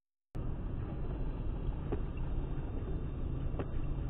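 Steady low road and engine noise inside a moving car, heard through a dashcam's microphone, cutting in suddenly after silence about a third of a second in. A faint click comes about every second and a half, fitting the windscreen wiper sweeping across a wet windscreen.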